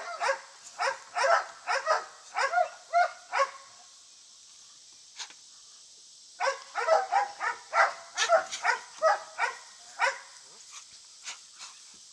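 A working detection dog barking in rapid runs of about two barks a second, with a pause of about two seconds in the middle, then trailing off into a few faint barks near the end.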